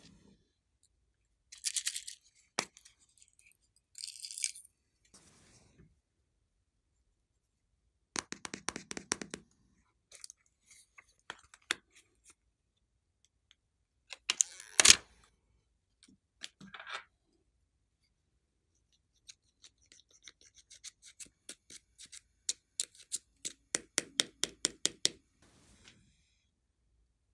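Small plastic eyeshadow palettes being handled: the clear protective film is peeled off the pans with a crinkle, loudest about fifteen seconds in. Light taps and clicks of the palette cases come in between, and a quick series of clicks comes in the last few seconds.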